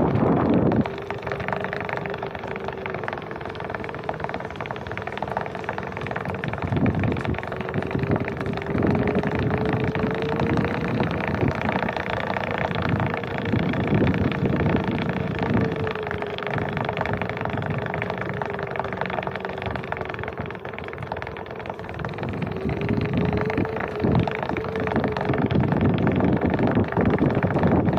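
Onewheel electric board's hub motor whining, a thin tone whose pitch slowly rises and falls with the riding speed, over wind buffeting the microphone.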